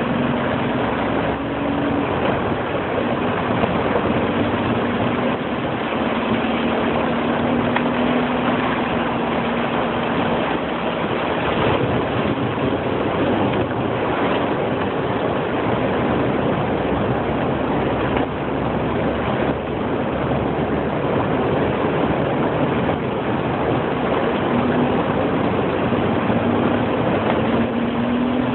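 Jeep driving through deep floodwater, heard from inside the cab: its tyres throw up a constant rush of water and spray over the engine's steady hum. The hum is clearer at the start and near the end, and in the middle the water noise covers it.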